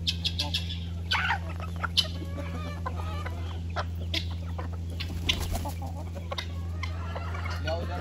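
Domestic chickens clucking, with short sharp calls from the flock scattered through, over a steady low hum.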